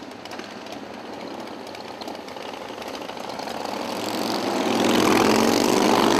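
Cruiser motorcycles of a group ride pulling out and riding past, their engines getting louder until one passes close about five seconds in, its pitch rising slightly as it accelerates.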